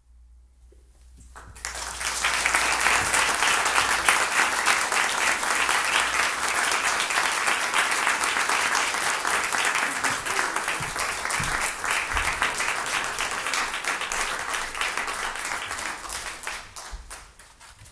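A small audience applauding, beginning about a second and a half in after a moment of quiet and dying away near the end.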